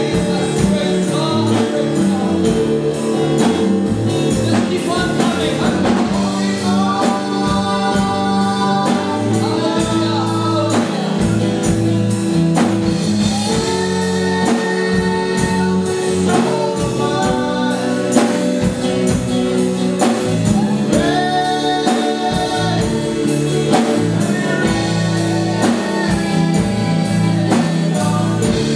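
Live church worship band playing a gospel song: drum kit keeping a steady beat under guitars and bass, with voices singing long held phrases over it.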